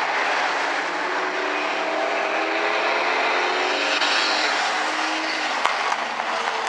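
Engines of a pack of hobby stock race cars running together on the oval, their pitch rising and falling as they rev. There is a single sharp click about five and a half seconds in.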